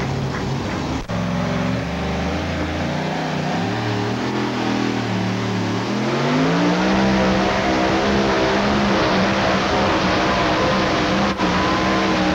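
Supercharged two-wheel-drive pulling truck engine: it revs up over a few seconds and then holds a loud, steady high rpm as the truck pulls the sled down the track. Brief cuts in the recording come about a second in and near the end.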